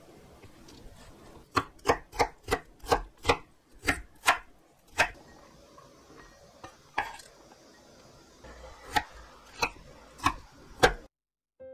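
Chef's knife chopping on a wooden cutting board: a quick run of sharp strikes, about three a second, as onion is diced, then after a short lull a few spaced strikes as jalapeño is chopped. The sound cuts off suddenly near the end.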